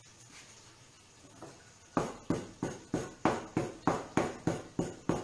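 A blade chopping through a rope of gnocchi dough onto a wooden board: a quick, even run of knocks, about three a second, starting about two seconds in.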